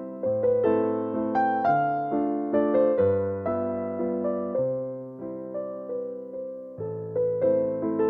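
Background music on an electric piano: sustained chords and a melody with notes that fade after each strike, changing every half second or so.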